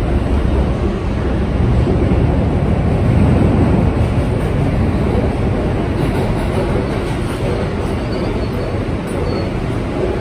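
New York City subway car on the F line running, heard from inside the car: a steady, loud rumble of wheels on rail and car noise.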